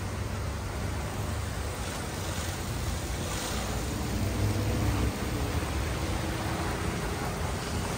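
Steady hiss of rain and wet pavement, with a pickup truck driving past close by on the wet lot about four to five seconds in, its engine and tyre swish swelling and then fading.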